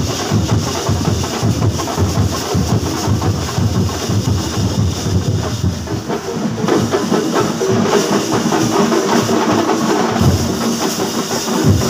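Kerala temple drum ensemble (chenda melam) playing a fast, dense beat, with steady held tones joining in about halfway through.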